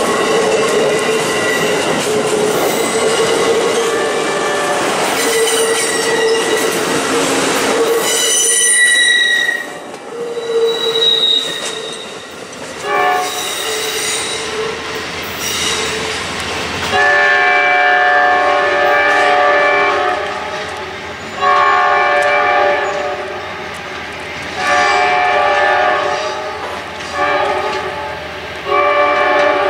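A passenger train's cars rolling past close by, with loud wheel-on-rail noise and steady flange squeal, thinning out as the last cars clear about eight seconds in. From about seventeen seconds in, a train horn sounds a string of long and short blasts.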